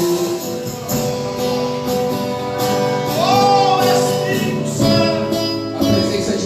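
Live worship music: a voice singing long held notes over sustained instrumental chords.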